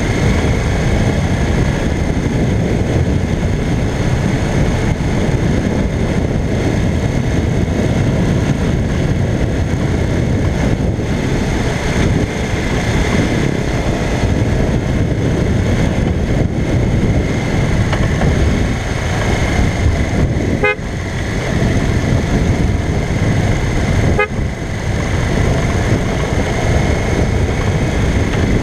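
1985 Honda CBX 750P's air-cooled inline-four running steadily under way, heard through heavy wind and road noise. The sound dips briefly a few times in the latter part.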